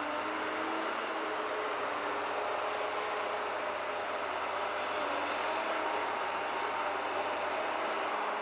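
An engine of a heavy machine running steadily at one speed, a constant hum of several tones with no revving.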